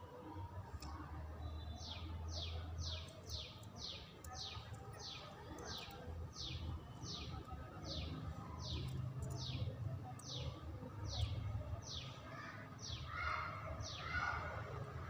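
A bird calling over and over, a quick falling chirp two to three times a second, over a low steady background rumble.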